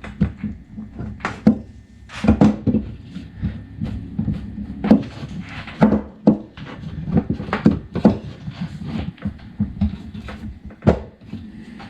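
Irregular knocks, clicks and taps of shifter parts being handled as a tight-tolerance bushing is worked onto a lightly lubricated shifter shaft, about a dozen sharp knocks spread unevenly through the stretch.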